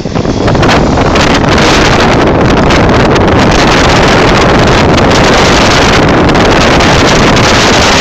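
Strong wind buffeting the microphone: a loud, steady rumble and hiss that dips briefly at the very start and then holds.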